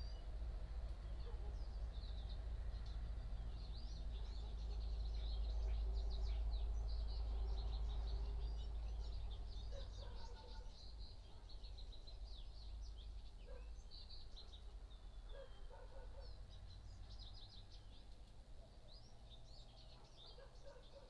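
Low vehicle rumble that eases off after about ten seconds, with many birds chirping high above it.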